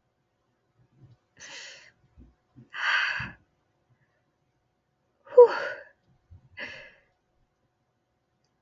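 A woman's breathy sighs and gasps, four of them, the loudest about halfway through with a short falling whimper. Faint low knocks come around two to three seconds in. These are straining breaths as she works an earring through her self-pierced earlobe.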